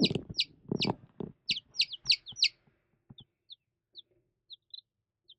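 Baby chicks peeping: quick high falling peeps at about three or four a second, then thinning to a few faint, scattered peeps about halfway through. A low rustling sound runs under the first second or so.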